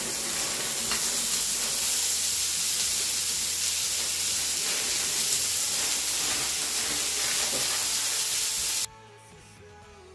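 Mixed vegetables (carrots, green beans and corn) sizzling steadily in a frying pan with sliced sausage. The sizzling cuts off abruptly near the end, leaving quiet background music.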